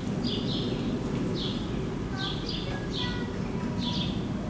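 Small birds chirping over and over, short high chirps about every half second, often in quick pairs, over a steady low background rumble.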